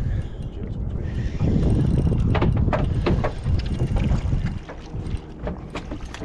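Wind buffeting the microphone and water against a small boat's hull, a low rumble loudest in the middle, with several sharp clicks and knocks.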